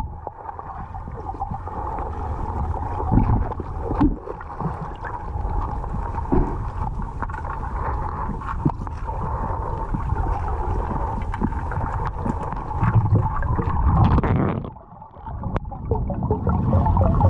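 Underwater ambience heard through a waterproof camera housing: a steady muffled rumble of moving water with scattered clicks and knocks. The level dips briefly about fifteen seconds in, then rises again.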